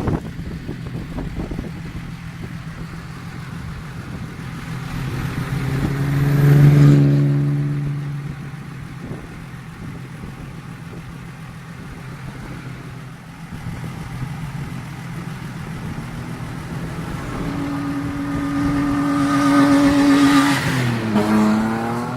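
Off-road vehicles driving on desert sand, engines under load. One grows loud and passes about seven seconds in, its engine note falling as it goes by. A second builds up and passes near the end with the same drop in pitch.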